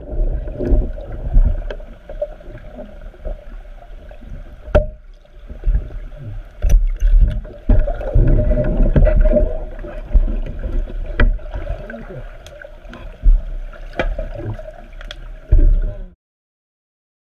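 Underwater bubbling and churning water heard through a submerged camera, with scattered knocks and clicks, as a trainee flipped upside down in a training seat struggles free of it. It cuts off suddenly near the end.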